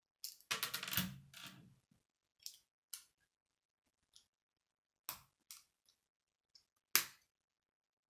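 Plastic K'nex rods and connectors clicking and rattling as they are handled and snapped together. A quick run of clicks comes in the first two seconds, then single clicks follow, the sharpest about seven seconds in.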